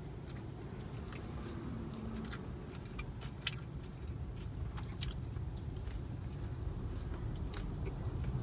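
A man chewing and biting into fried chicken popcorn: soft, irregular crunches and mouth clicks over a low steady hum inside a car.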